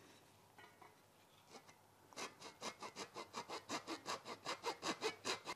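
Small hand cutoff saw cutting off a protruding wooden dowel. A couple of light starting strokes, then quick, steady back-and-forth strokes, about six a second, from about two seconds in.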